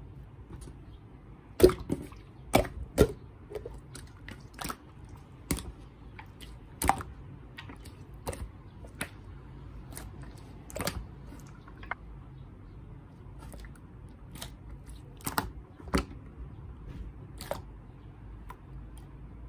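Pink clear slime being pressed and worked by hand, giving irregular wet clicks and pops, a few sharper and louder than the rest.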